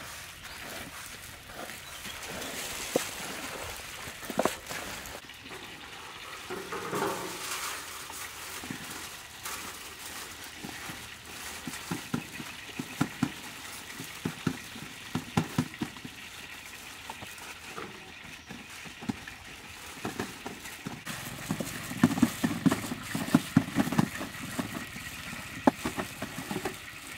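Hands stirring dry crumb coating in steel trays and pressing it onto raw chicken legs: a soft rustling with irregular light pats and taps, busiest about halfway through and near the end.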